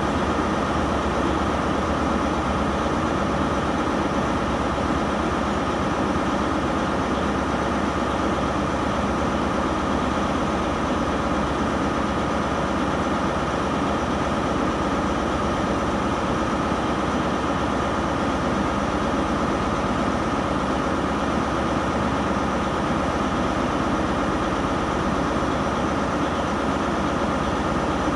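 Diesel multiple unit's underfloor diesel engines idling steadily, a CrossCountry Voyager standing at the platform.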